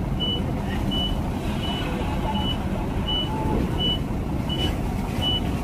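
A vehicle reversing alarm beeping steadily, about one short high beep every three-quarters of a second, over the steady low running of a heavy truck engine.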